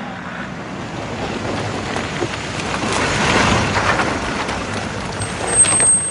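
Four-wheel-drive rescue vehicle driving on a bush track, its engine and tyres growing louder as it comes close, loudest about halfway, then easing as it goes off-road through the undergrowth. A brief high squeal comes near the end.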